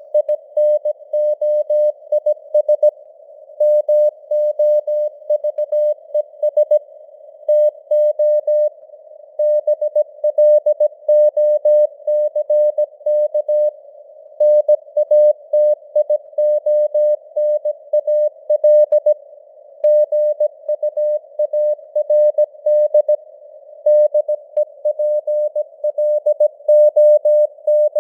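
Morse code (CW) at 17 words per minute: a single tone of about 600 Hz keyed into dots and dashes, spelling out news headlines. A narrow band of simulated radio noise hisses around the tone, and the signal strength varies as in QSB fading.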